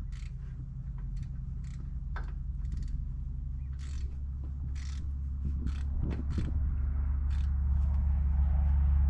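Irregular metallic clicks and clanks of hand tools working on the forklift, over a steady low machine hum that grows louder toward the end.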